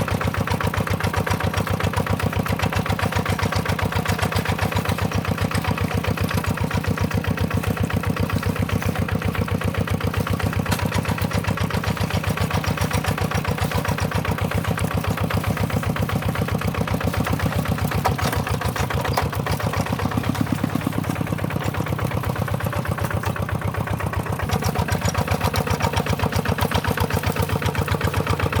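Tractor engine running steadily with a fast, even beat, shifting slightly in tone for a few seconds past the middle.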